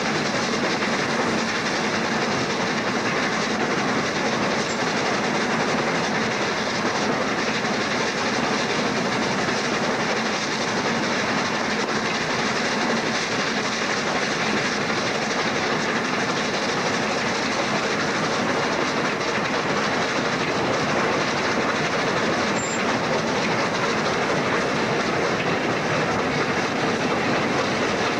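Steam locomotive 60103 Flying Scotsman, an LNER A3 Pacific, heard from its footplate while running along the line: a loud, steady, unbroken din of wheels on the rails and the shaking, rattling cab.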